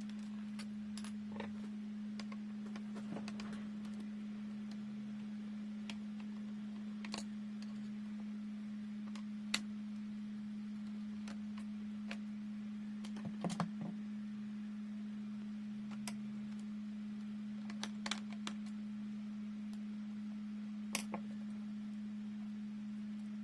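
Scattered small clicks and taps from laptop parts and tools being handled during disassembly, over a steady low hum. A quick cluster of clicks comes about halfway through.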